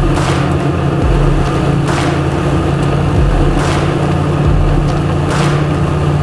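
Outboard engine running steadily under a low hum, with a rushing swoosh about every second and a half.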